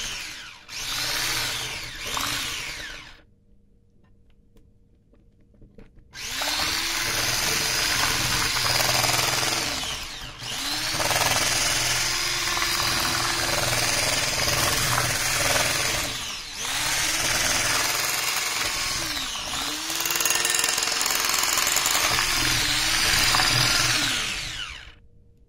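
Electric hand mixer running with its beaters in cake batter: two short runs, a pause of a few seconds, then a long steady run whose motor briefly slows and picks up again a few times before it is switched off near the end.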